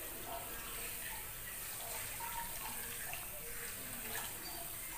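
Water from a handheld salon shower sprayer running steadily over the hair into a backwash basin, rinsing out hair dye.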